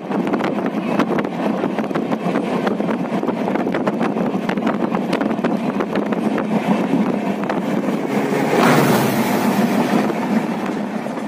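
Train running at speed, wheels clattering steadily over the rails with many sharp clicks. About eight and a half seconds in, a louder rush swells up as a train sweeps close past, then eases off.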